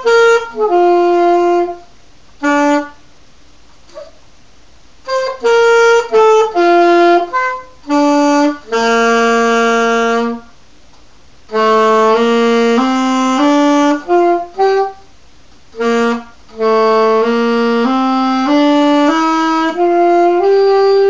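A beginner playing the saxophone in halting phrases of single held notes with pauses between them, including one long held note and runs of notes stepping upward. The tone is rough, which the player puts down to a reed that is probably drying out.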